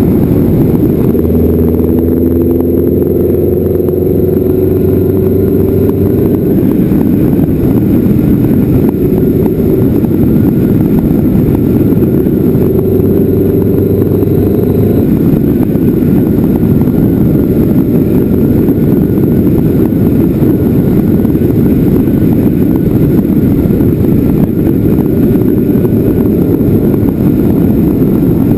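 Heavy, steady wind rumble on a GoPro microphone in a non-waterproof case covered with a sponge, moving at speed. A vehicle engine's tone shows through twice, near the start and about halfway through.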